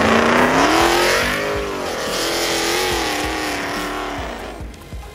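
Dodge Charger doing donuts: the engine revs high, climbing in the first second and then wavering up and down as it holds the spin, over the noise of spinning, squealing tyres. The sound fades near the end as the car moves off.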